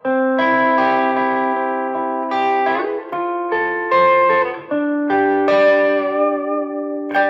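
Electric guitar played through an effects pedal set for a prettier tone: a short phrase of ringing chords and single notes with long sustain, the notes changing every half second or so, muted sharply just before the end.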